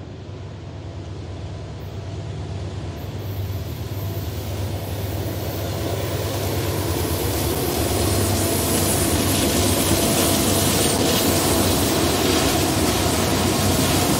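Norfolk Southern freight train's diesel locomotives approaching and passing, a low engine drone growing steadily louder over about the first eight seconds and then holding. Wheel-on-rail noise joins in near the end as the covered hopper cars start to roll past.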